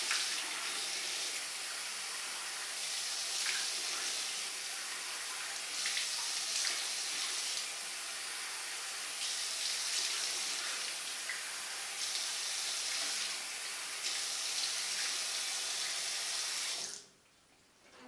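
Bathroom tap running into a sink while a face is rinsed of foaming cleanser, the splashing shifting every second or two. The water shuts off abruptly about a second before the end.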